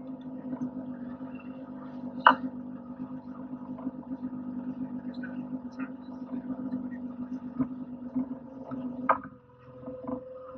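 Lobster boat's motor and pot hauler running with a steady hum while a string of pots is hauled, with a couple of sharp knocks. The hum drops away about nine seconds in as the pot reaches the rail.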